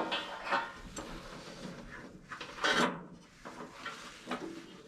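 Several short scrapes and knocks of small parts being handled as a furnace's hot surface igniter is screwed back onto its mount, the loudest about three seconds in.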